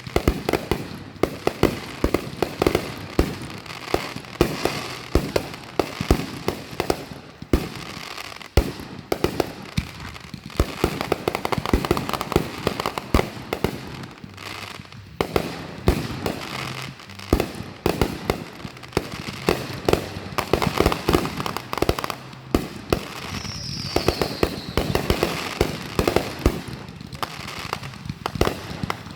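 Fireworks going off one after another: a dense run of sharp bangs and crackling, with a short falling whistle about two-thirds of the way through.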